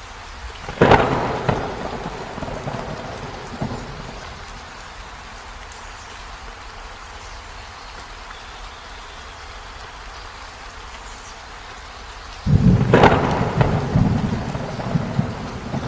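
Steady heavy rainfall hissing, broken by a sharp thunderclap about a second in that rumbles away over a few seconds; near the end a second thunderclap breaks in suddenly and rolls on with repeated cracks.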